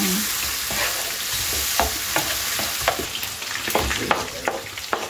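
Tomatoes frying in oil in a nonstick frying pan, sizzling steadily while a wooden spoon stirs and scrapes them, with sharp spoon knocks coming more often in the second half. Near the end, sliced spring onions are scraped off a plastic cutting board into the pan.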